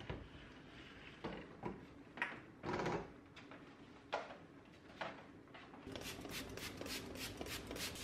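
A heavy countertop kitchen appliance is knocked and slid across a stone worktop: a few clunks and scrapes, the loudest about three seconds in. Near the end come a rapid series of short hissing squirts, about three a second, as cleaner is sprayed onto the glass hob.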